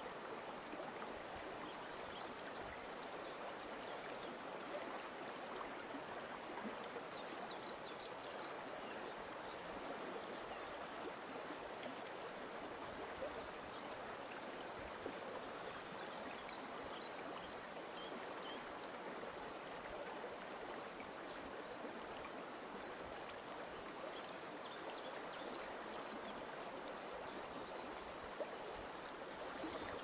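The upper Volga running fast over a shallow riffle: a steady, even rushing of water. Small birds chirp high above it in short bursts, several times.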